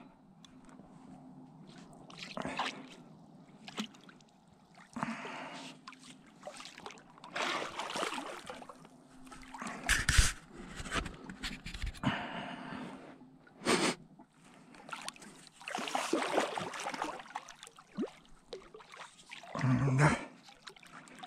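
Heavy breathing and gasps of an angler playing a hooked wels catfish, mixed with water splashing around an inflatable boat. There are two sharp knocks, about ten and fourteen seconds in, the louder one first, and a louder splash near the end as the fish reaches the surface.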